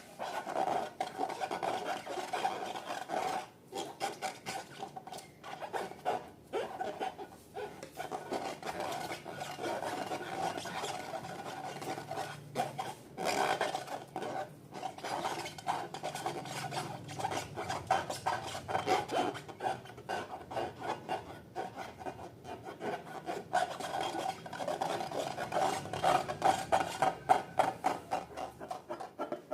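Slime being mixed and worked, a dense run of small sticky crackles and clicks.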